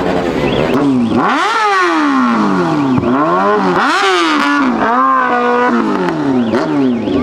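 Motorcycle engine revved hard several times, pitch sweeping up and falling back, with one rev held briefly in the middle.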